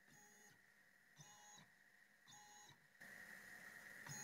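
Faint whine of the Eleksmill's NEMA 17 stepper motors making short jog moves through their lead screws, about one move a second, each ramping up and back down in pitch. A faint steady high hum runs underneath.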